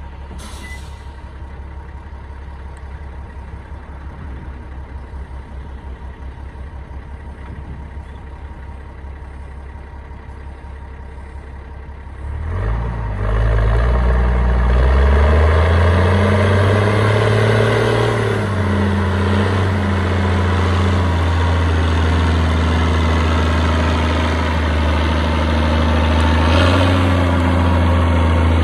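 Mercedes-Benz MB-trac 1000's six-cylinder diesel idling with a low hum. About twelve seconds in it revs up sharply, puffing exhaust smoke, and runs hard under load as the tractor pulls off with a loaded timber trailer. The pitch rises and wavers for a few seconds, then holds steady.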